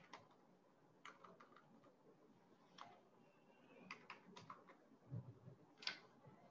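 Faint computer-keyboard typing: scattered single key clicks and short runs of keystrokes, with a low thump and a sharper key press near the end.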